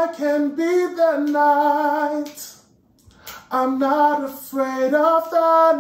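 A man singing two phrases of a song melody with a clear, pitched voice and no audible accompaniment, with a short pause between the phrases about halfway through.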